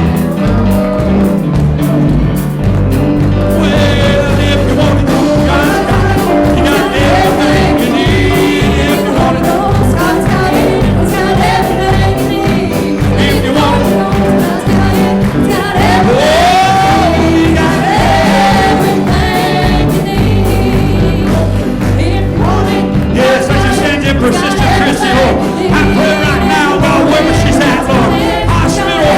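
Gospel music with singing over a steady bass line.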